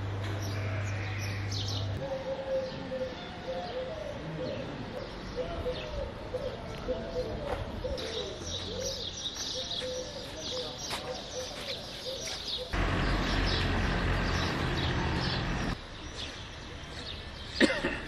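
Outdoor town ambience with small birds chirping and twittering throughout. A steady low rumble comes in for about three seconds past the middle, and a single sharp knock, the loudest sound, comes near the end.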